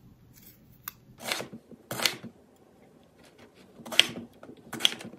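Kitchen knife slicing through eggplant on a wooden cutting board: several separate cuts, with a pause in the middle.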